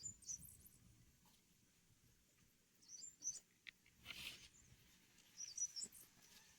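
Faint, short bird chirps, a few high calls spread out with long gaps between them, and a brief noise about four seconds in.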